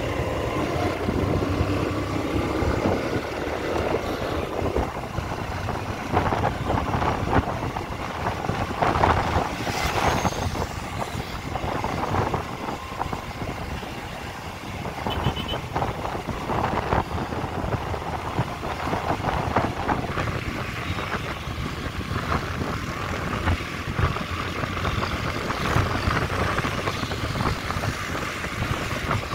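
Road traffic noise of motor vehicles, running on steadily with irregular louder swells and knocks.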